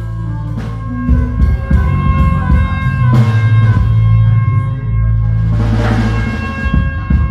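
Small live band playing at a soundcheck: drum kit and electric guitar over strong, sustained low notes, with a cymbal wash about six seconds in.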